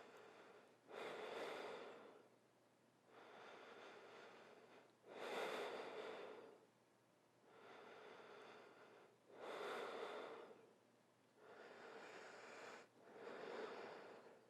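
A person breathing slowly and evenly: about four full breaths, each a quieter breath followed by a louder one, roughly every four seconds.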